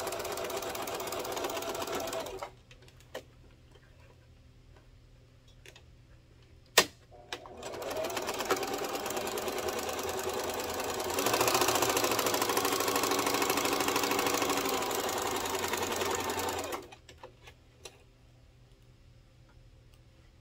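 Electric domestic sewing machine stitching a seam: it runs for about two seconds and stops, then after a sharp click about seven seconds in it starts again and runs louder from about eleven seconds in until it stops near seventeen seconds. A few small clicks fall in the pauses.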